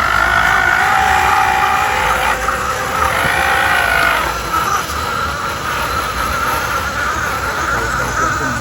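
1/12-scale RC crawler's electric motor and gears whining, the pitch rising and falling in the first half.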